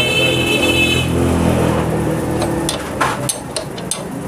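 A motor vehicle engine runs in the background for the first two and a half seconds or so, with a short high whine near the start. It then gives way to several sharp metallic clicks from a spanner working a motorcycle's front axle nut.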